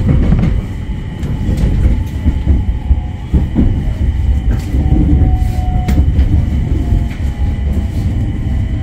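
Passenger train running on the rails, heard from inside the car: a loud, steady low rumble with a few sharp clicks of the wheels over rail joints.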